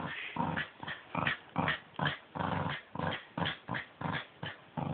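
Dog play growling in short pulses, two or three a second, during a tug of war over a glove.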